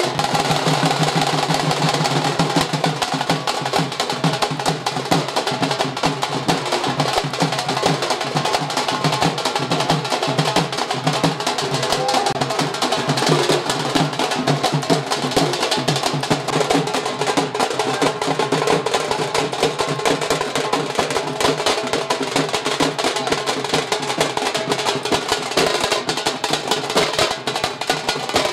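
A group of drummers beating shoulder-slung barrel drums with sticks, a fast, dense, unbroken beat.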